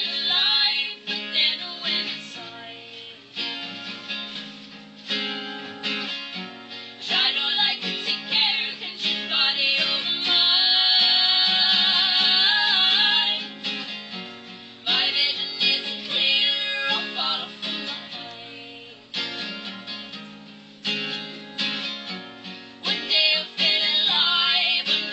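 Acoustic guitar strummed along with female singing, a song played live.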